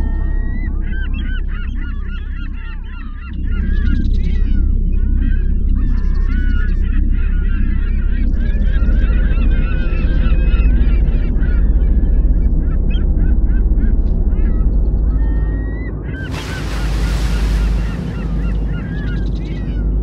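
A flock of gulls calling, many harsh calls overlapping one another, over a steady low rumble of water at the camera. About sixteen seconds in, a loud rushing splash of water covers the calls for a couple of seconds.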